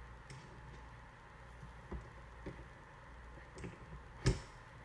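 Light clicks and small knocks of metal and plastic parts being handled as a First Strike Compact marker's trigger group is seated on its receiver, with one sharper click a little over four seconds in.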